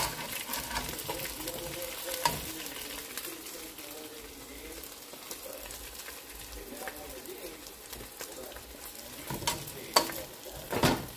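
Seasoned chicken pieces sizzling steadily in hot oil in a pot, with metal tongs clicking against the pot a few times as the pieces are lifted out; the sharpest clicks come twice near the end.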